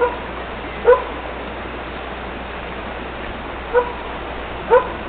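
A dog giving four short barks: two about a second apart at the start, then two more about a second apart near the end, over a steady background hiss.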